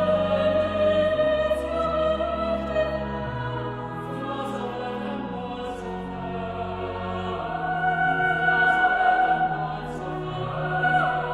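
Choir singing a slow hymn or anthem, with held sustained notes and a low accompaniment.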